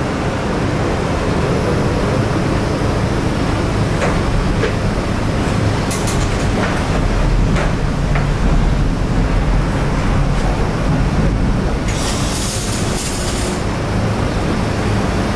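Steady machine hum and fan rush of a welding shop, with a few light clicks and a brief hiss about twelve seconds in.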